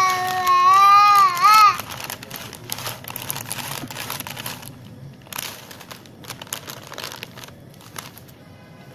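A young child's long, drawn-out cry that wavers and breaks off about two seconds in, followed by the crinkling of a plastic snack packet being handled, in irregular bursts that fade out.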